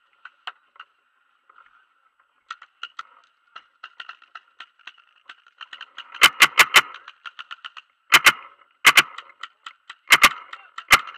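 Paintball markers firing: a steady scatter of faint, distant pops, then loud close shots from about six seconds in, in a quick run of about four, then pairs and a single shot near the end.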